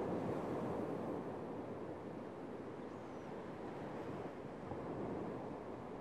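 Small sea waves breaking and washing up on a sandy shore, with wind blowing. The surf swells loudest in the first second or so, then eases to a steady wash.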